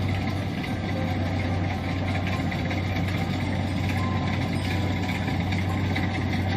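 Kubota DC-70 rice combine harvester's diesel engine running steadily, a constant low hum with machinery noise over it.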